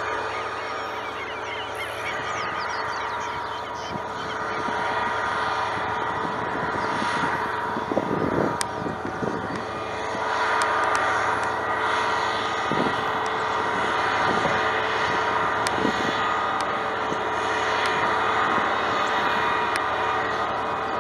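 GM GT22CW diesel-electric locomotive running steadily, hauling a loaded freight train, with a few clunks about eight, thirteen and sixteen seconds in.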